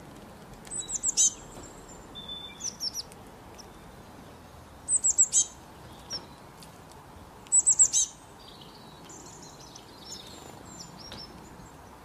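Small songbird singing short high-pitched phrases, each a quick run of four or five falling notes ending in a louder downward sweep, repeated three times a few seconds apart, with softer twitters between and near the end.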